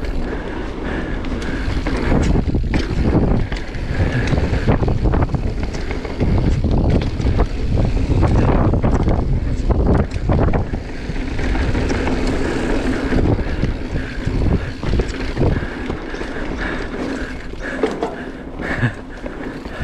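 Marin Mount Vision 8 mountain bike riding down a dirt singletrack: steady tyre rumble with a stream of knocks and rattles from the bike over bumps. Wind buffets the microphone throughout.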